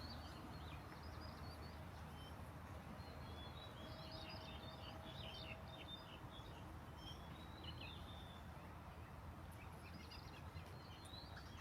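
Faint birds chirping in short, scattered calls over steady low outdoor background noise.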